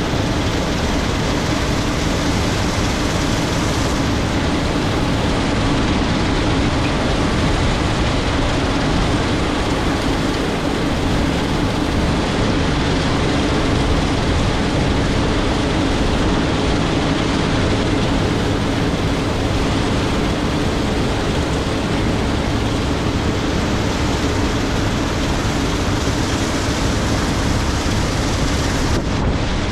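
Case IH 7230 Axial-Flow combine running steadily under load while harvesting soybeans through a MacDon FD75 FlexDraper header: a loud, even machine noise with a constant low hum.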